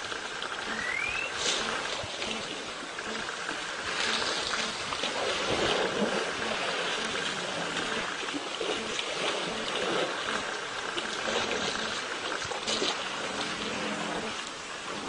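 Water splashing and sloshing around an elephant calf floundering in a waterhole, over a steady rushing noise.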